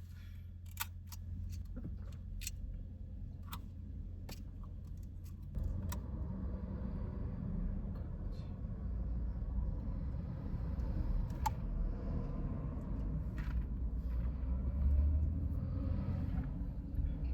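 Inside a small car: a few light clicks and a jingle like keys, then from about five seconds in a steady low rumble of the car running on the road that grows a little louder.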